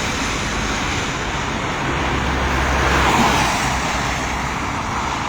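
Road traffic on rain-soaked streets: a steady hiss of tyres on wet road under engine rumble, swelling louder around three seconds in as a vehicle goes by.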